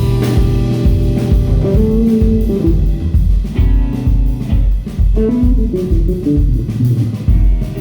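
Instrumental band music: a guitar melody over a drum kit keeping a steady beat, with a moving bass line.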